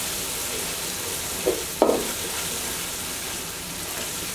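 Chopped onions and whole spices sizzling in hot fat in a pot, a steady hiss, with two short knocks about a second and a half in.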